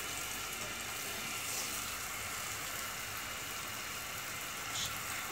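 Zalabia, balls of yeast dough, deep-frying in a pot of hot oil, with a steady sizzle of bubbling oil.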